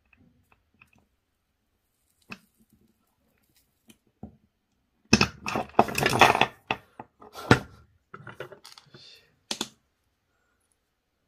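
A few faint clicks and taps, then a loud clatter of hard objects on a wooden desk about five seconds in, with more scattered knocks after it: the battery cell with its soldered wires and small circuit board set down or dropped and knocking against the table and the connectors lying there.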